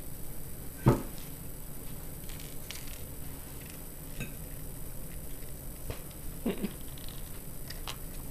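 Small hands patting and tapping on a plastic high-chair tray among scattered Cheerios, in light scattered taps, with one louder knock about a second in.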